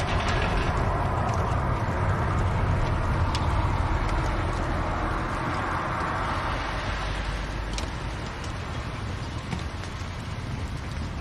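Fire burning in a fireplace: a steady low rush with a few faint crackles, easing slightly after about eight seconds.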